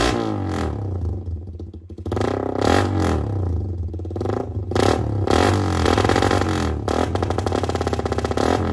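Suzuki Raider 150's single-cylinder four-stroke engine revving in repeated throttle blips through a Nueng conical tube-type open exhaust, the pitch rising and falling several times. Near the end it settles into a fast, even pulsing.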